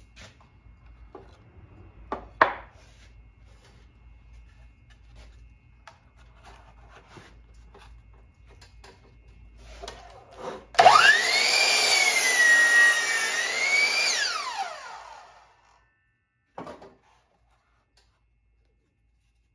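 Electric saw whining up to speed, its pitch dipping and recovering as it cuts through a wooden board, then winding down and stopping. Before it, a few light knocks of lumber being handled, and one more knock after.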